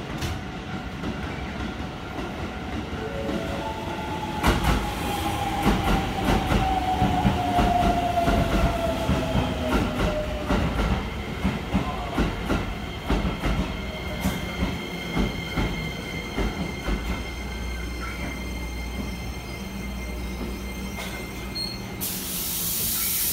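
Shin-Keisei N800 electric train pulling into a platform and braking to a stop. Its Toyo Denki IGBT VVVF inverter gives a tone that falls in pitch as it slows, and the wheels clack over the rail joints. A steady high whine follows, then a burst of air hiss near the end as the train stands.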